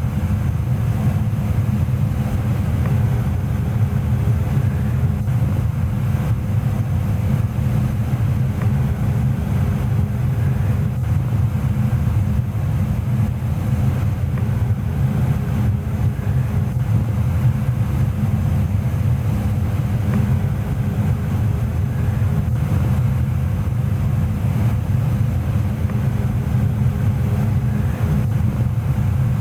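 Goodman GMNT080-4 gas furnace running steadily: an even low rumble of burners and air movement, with a faint steady hum over it.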